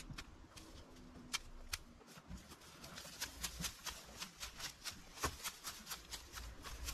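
Garden hand tools cutting and snapping plant stems: a run of sharp clicks and snips, sparse at first and then several a second from about three seconds in.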